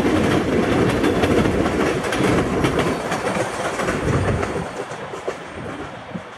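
Freight train tank cars rolling across a steel trestle overhead, the wheels clicking over the rail joints. The sound fades away from about four and a half seconds in as the end of the train leaves the trestle.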